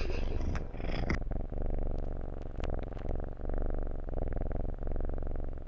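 Siamese cat purring right against the microphone, a fast low rumble that comes in cycles of about a second, one per breath. A few brief rubbing noises come in the first second.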